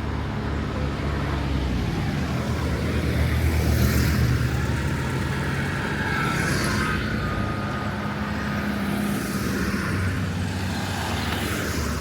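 Road traffic: a motor vehicle's engine running steadily, growing louder about four seconds in and again near the end as traffic passes.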